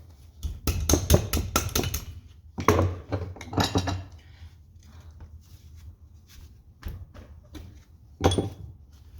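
Metal clanks and knocks from hand tools working on tractor hydraulic parts: a quick run of about eight knocks, a few more a second later, and one last knock near the end.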